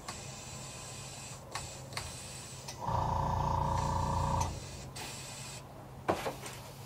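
Small airbrush compressor motor running for about a second and a half, starting about three seconds in and cutting off abruptly, while the airbrush is being cleaned out. Around it, a faint steady hiss of air through the airbrush and a few light clicks.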